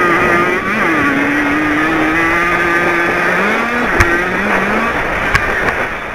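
Jawa 50 two-stroke race motorcycle running hard under the rider, its engine note dipping about a second in, then rising and falling again with the throttle. A sharp knock sounds about four seconds in, with a couple of lighter knocks after it.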